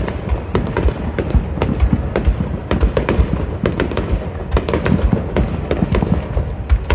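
Aerial fireworks bursting in rapid succession, a dense run of sharp bangs and crackles, several a second, over a constant rumble of booms.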